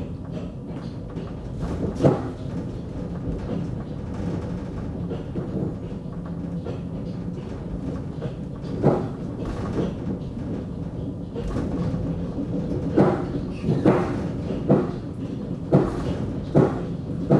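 Dresden Schwebebahn, a cable-hauled suspended railway car, running along its overhead rail into the station: a steady low rumble with an occasional sharp clunk, then clunks coming regularly about once a second in the last few seconds.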